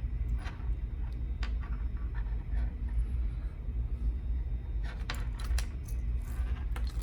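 Small metallic clicks and taps of lock pins and picking tools being handled on a Mul-T-Lock Junior, scattered, with a quick cluster about five seconds in, over a steady low rumble.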